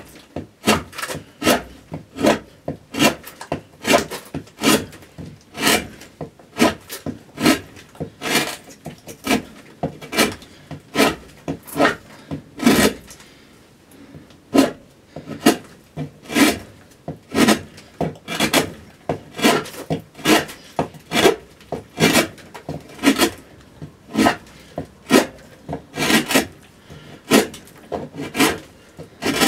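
Hand gouge cutting into a spruce cello top, a fast run of short scraping cuts about three a second, roughing out the arching. The cuts pause briefly about halfway through.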